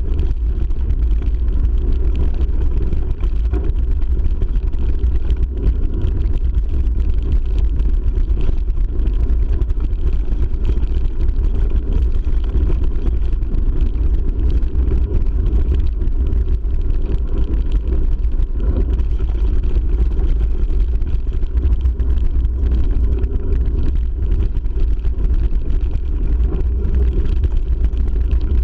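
Steady, muffled low rumble of a mountain bike's tyres on a gravel dirt track mixed with wind buffeting the action-camera microphone, unbroken throughout.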